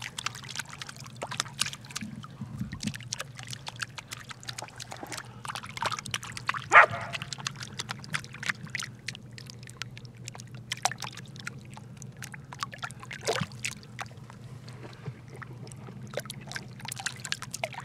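A dog at play in a game of fetch: scattered scuffling and clicking noises, with a short bark about seven seconds in and a weaker one about thirteen seconds in.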